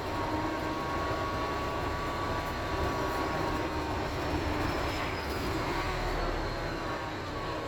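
Wright StreetDeck double-decker bus heard from inside on the move: its Mercedes-Benz OM934 four-cylinder diesel and drivetrain running steadily, with a faint whine that slowly falls in pitch over the first few seconds.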